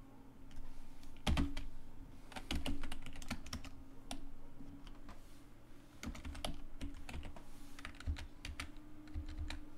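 Computer keyboard keys being pressed in irregular clusters of clicks, over a faint steady hum.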